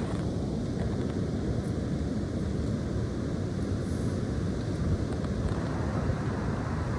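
High wind blowing steadily, a continuous low rushing rumble.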